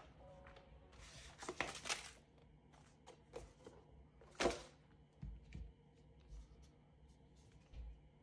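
Cardboard box and packaging being handled on a desk: rustling and sliding about a second in, one sharp knock about four and a half seconds in, then a few soft thumps as the folded gimbal is lifted out and handled.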